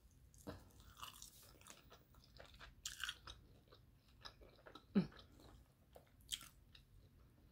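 Biting and chewing a crunchy fried chicken wing, close to the microphone: scattered crisp crunches, the loudest about five seconds in.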